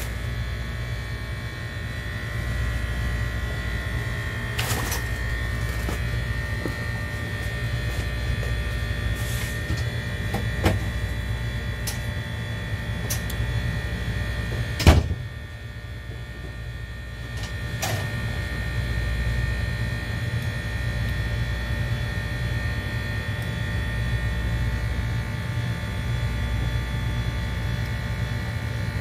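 A steady low buzzing hum, with a few sharp knocks or taps over it; the loudest knock comes about halfway through, and the hum dips briefly after it.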